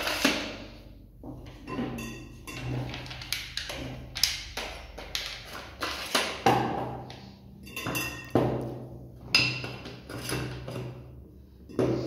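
Stainless steel tubes and hard plastic corner brackets knocking and clinking against each other and the tabletop as the tubes are slid into the brackets and set down: irregular knocks, several with a short metallic ring.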